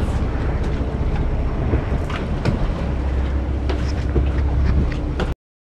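Charter boat's engine idling at sea, a steady low rumble, with a few short knocks and clicks from handling on deck. The sound cuts off abruptly a little after five seconds in.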